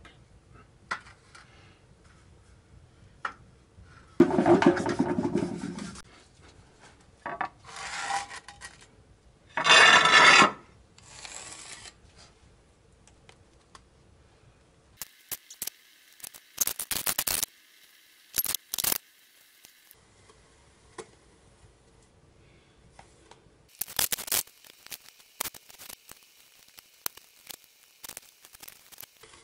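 A trowel scraping and spreading cement mortar over a concrete step, in irregular scrapes, rubs and clicks separated by short pauses.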